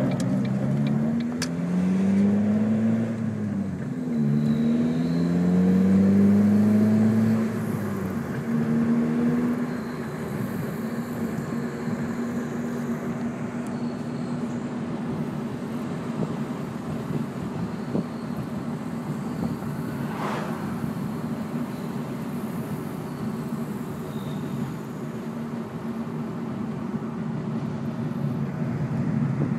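A 2002 Ford Focus running, its engine pitch rising and falling several times in the first ten seconds as it pulls away through the gears, then settling into a steady drone.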